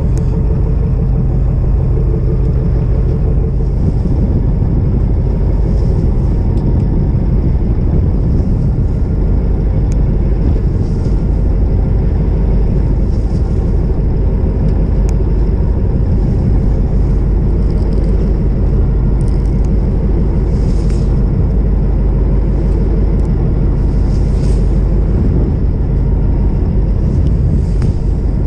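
Fishing boat's engine idling, a steady low rumble, with wind noise on the microphone.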